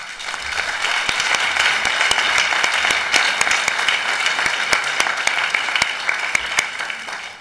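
Audience applauding, a dense patter of many hands with single sharp claps standing out; it starts suddenly and dies away near the end.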